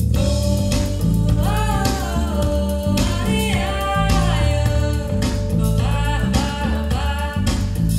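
A pop song with a sung melody over bass and guitar, played back through L-Acoustics SYVA column loudspeakers with their SYVA LOW bass boxes, driven by a single amplifier, in a demo room.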